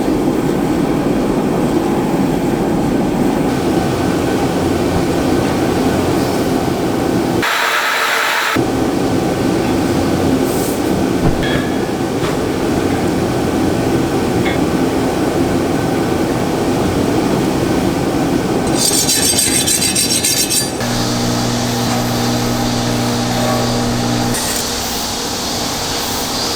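A power tool grinding steel, running with a steady, rough noise. It breaks off briefly about eight seconds in and changes character near nineteen seconds. It ends with a steady low hum.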